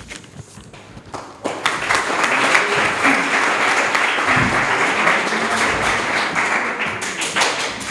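Audience applauding in a hall. The clapping starts about a second and a half in and dies away near the end.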